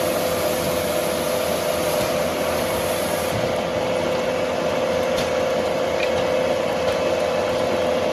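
Heavy sawmill machinery running steadily: an even mechanical noise with a constant held hum.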